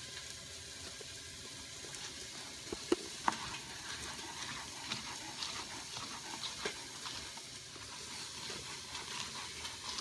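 Ground beef sizzling steadily as it browns in an Instant Pot on sauté, with a few sharp knocks of a chef's knife on a plastic cutting board as a bell pepper is diced.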